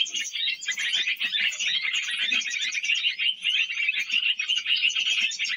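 Continuous, dense high twittering of small birds, many quick chirps overlapping without pause.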